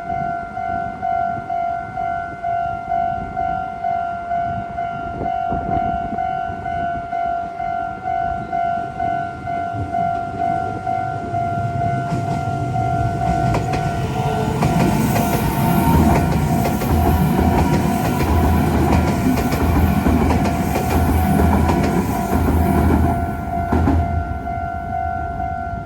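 Japanese railroad crossing warning bell ringing its 'kan kan kan' in a quick, even rhythm throughout. About halfway in a train rumbles over the crossing, its wheels clicking over the rail joints, loudest for several seconds and then stopping shortly before the end while the bell keeps ringing.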